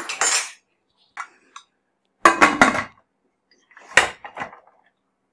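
Aluminium pressure cooker being closed: a brief scrape of the spoon in the pot, then the metal lid clattering and ringing as it goes on about two seconds in, and a sharp click with a few small knocks near four seconds as it is fitted shut.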